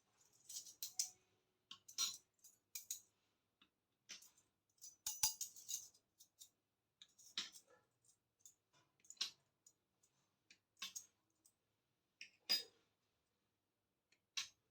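Small miniature toy kitchen pieces being handled, giving faint irregular clicks and clinks: a few quick clusters early and about five seconds in, then single taps every second or two.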